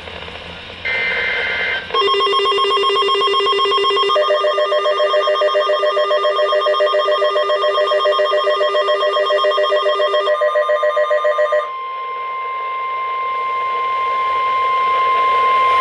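Weather radio alert tones: a short data-tone burst about a second in, then a rapidly pulsing electronic multi-tone alarm for about ten seconds, then the single steady NOAA Weather Radio warning alarm tone, growing louder, which announces an incoming warning.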